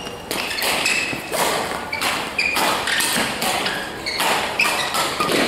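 Badminton rally: rackets striking the shuttlecock and players' feet thudding on the court floor in a quick run of sharp hits, about two a second, with brief shoe squeaks between them.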